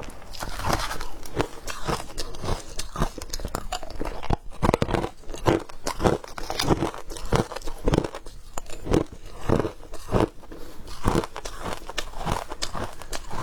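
Frozen matcha ice being bitten and chewed: a steady run of crisp crunches, about two or three a second.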